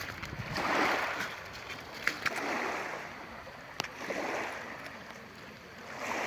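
Small sea waves washing onto the shore in repeated swells of hiss, one every second and a half to two seconds, with a few sharp clicks in between.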